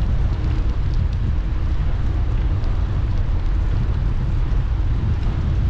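Wind buffeting the microphone of a bicycle-mounted GoPro while riding, a steady low rumble.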